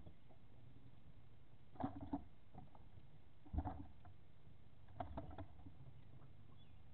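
Knocks and thumps in a Tracker aluminum boat as crappie are lifted one by one out of an open well in the floor, in three short clusters about two, three and a half, and five seconds in.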